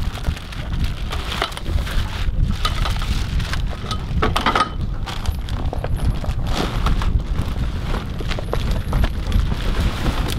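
Plastic wrapping crinkling and rustling as a packed inflatable dinghy is handled and unwrapped, with many short crackles, over a steady low rumble of wind on the microphone.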